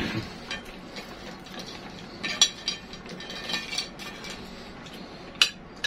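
Metal spoon and fork clinking and scraping on ceramic plates while eating, a handful of sharp clinks over quieter scraping.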